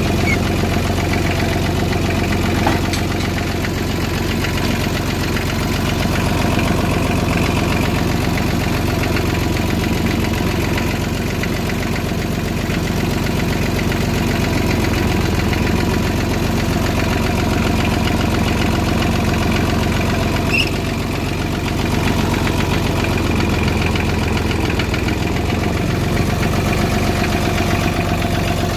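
McCormick D324 tractor's diesel engine running steadily at a low, even speed.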